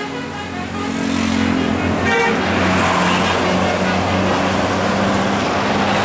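A large diesel coach passes close by, its engine running with a steady low hum under rising tyre and road noise. A brief horn toot sounds about two seconds in.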